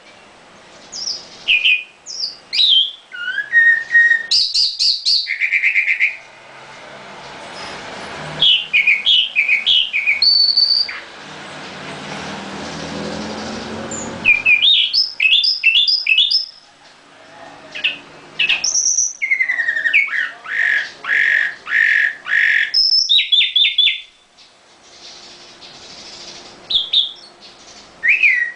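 Caged nightingale singing in separate phrases of clear whistles, quick repeated notes and trills, with short pauses between them. A rushing noise swells and fades behind the song around the middle.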